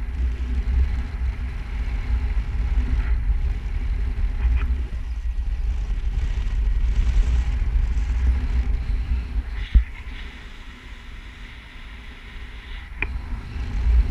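Wind buffeting the microphone of a camera flying under a paraglider, a low, fluctuating rumble. A single sharp knock comes about ten seconds in, after which the wind noise drops for a few seconds and then rises again.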